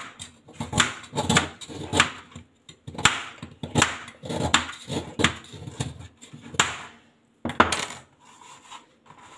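Kitchen knife chopping on a plastic cutting board: a run of sharp knocks, about one and a half a second, stopping near the end.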